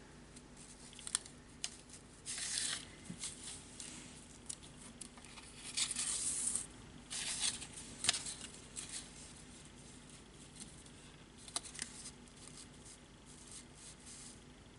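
Sheets of card and paper rustling and sliding over a cutting mat as they are lifted and moved about, in several short bursts with a few light clicks.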